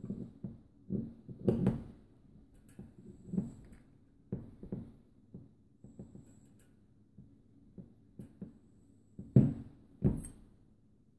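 A disassembled electric fan motor being handled on a table: scattered light knocks, taps and rubs of its metal parts under the hands. Two sharper knocks come near the end.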